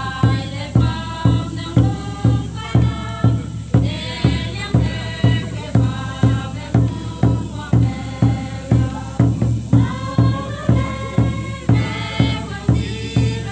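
A group of voices singing a traditional folk song in unison over a steady drum beat at about two beats a second, accompanying a line dance.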